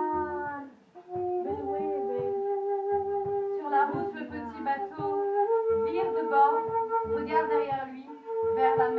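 A woman's voice singing long, wordless held notes that break off briefly about a second in and step up in pitch about halfway through. A low, uneven pulse sounds beneath the notes.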